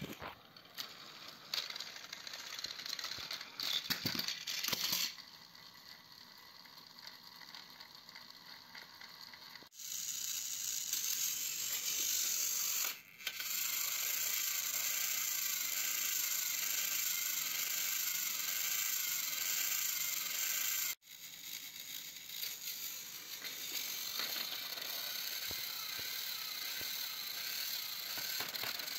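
Battery-powered toy train motors whirring, with gears rattling, as the locomotives strain head-on against each other on plastic track. The whirring grows louder about a third of the way in and cuts out sharply for a moment about two thirds of the way through.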